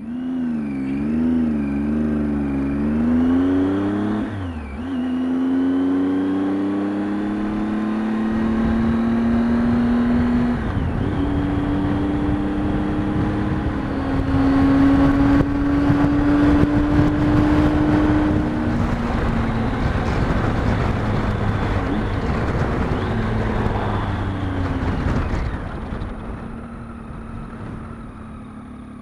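Triumph Tiger 800 XCx's inline-three engine accelerating through the gears, its pitch climbing and then dropping at a shift about four and a half seconds in and again about ten seconds in, then holding steady at cruising speed with wind rushing over the microphone. Near the end it eases off the throttle and slows.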